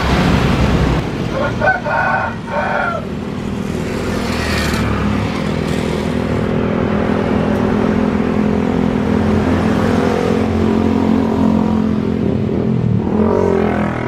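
Jet airliner engines running with a broad rumble and several steady held tones as a plane lands and rolls out on the runway. About a second or two in, a rooster crows.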